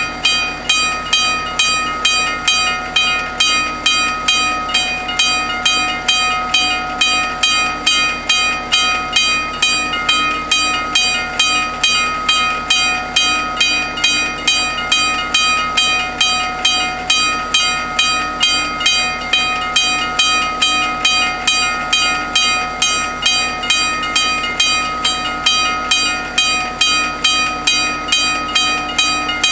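Italian level crossing's two warning bells ringing steadily in evenly spaced strokes, about two a second, while the crossing is closed for an approaching train.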